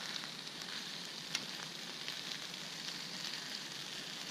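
Food sizzling steadily in a hot frying pan, with scattered crackles and one sharp pop about a second and a half in.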